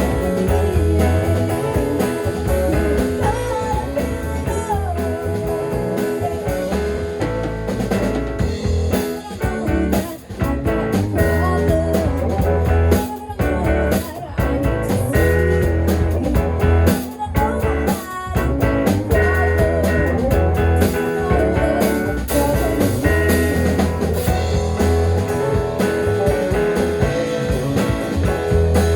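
Live blues-rock band playing, guitar to the fore over a heavy bass line and drums.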